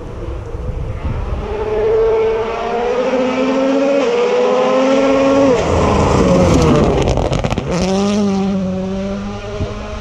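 A World Rally Car's 1.6-litre turbocharged four-cylinder engine at full throttle on a gravel stage, rising in pitch and dropping back at upshifts about four and five and a half seconds in. It passes close around seven seconds with a falling pitch and a clatter of thrown gravel, then keeps accelerating as it pulls away.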